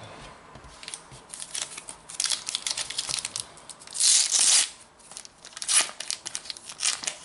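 Crinkling and tearing of a trading-card pack's wrapper being ripped open by hand, with the loudest rip about four seconds in and a sharper one near six seconds.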